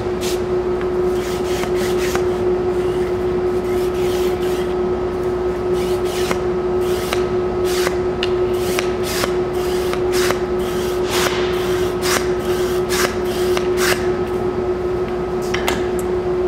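Compressed-air nozzle blowing concrete dust out of a freshly drilled anchor hole: repeated short hissing blasts of air, over a steady hum.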